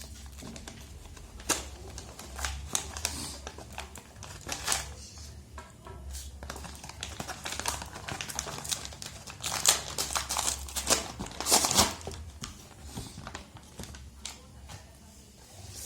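Packaging crinkling and rustling in irregular bursts as the phone's box and wrapping are handled by hand, loudest near the end.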